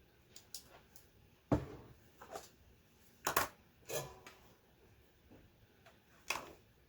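Scattered clicks and knocks of small plastic parts being handled during a C64 keyboard reassembly: about six separate taps, the loudest about a second and a half in and again a little past three seconds.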